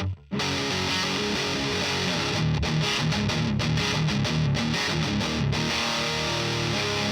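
Distorted electric guitar through a Diezel VH4 preamp pedal, playing a heavy riff. It breaks off briefly just after the start, then plays rapid stop-start notes with short gaps, settling into held chords near the end.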